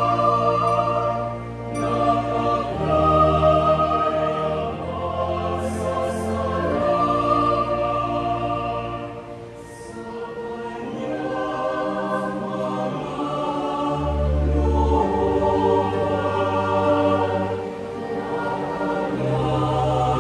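Mixed choir singing a sacred song in harmony, accompanied by electronic keyboards with held bass notes that change every few seconds. The singing thins briefly near the middle before building again.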